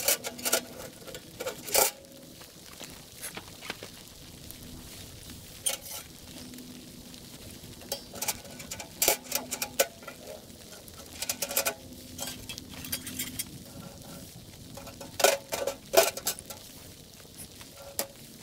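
Sheet-metal tent wood stove being assembled: irregular metal clinks and clanks as its legs, body and stovepipe are fitted together, loudest twice about fifteen and sixteen seconds in.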